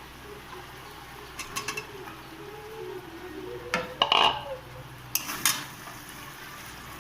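Metal spoon clinking and scraping against a cooking pot as fried chicken pieces are added to spiced masala, in a few separate clatters.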